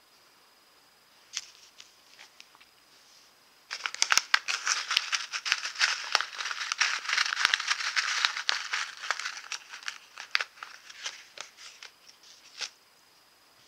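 Crinkly wrapping being handled and rummaged through by hand: a few small clicks, then about six seconds of dense crinkling and crackling starting a few seconds in, fading to scattered ticks and taps near the end.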